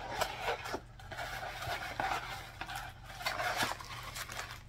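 Rustling and crinkling of a kraft paper padded mailer as a plastic-wrapped pack is worked out of it, with small clicks and scrapes; it is loudest about two seconds in and again around three and a half seconds.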